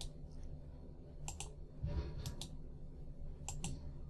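Computer mouse button clicks, quiet and sharp: a single click, then three quick press-and-release pairs about a second apart, over a low steady hum.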